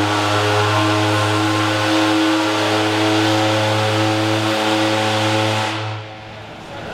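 A steamship's steam whistle sounding one long, steady blast that dies away about six seconds in.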